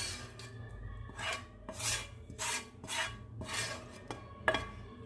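A spoon scraping and stirring in a bowl, mixing spices into potato pieces: a run of short rasping strokes, about two a second, with a sharper clink near the end.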